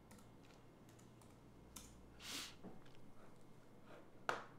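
Faint, scattered clicks of typing on a computer keyboard, with a sharper click near the end.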